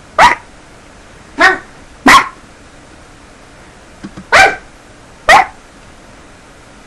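A dog barking: five short, sharp barks, two close together, then a pause of about two seconds before the last three.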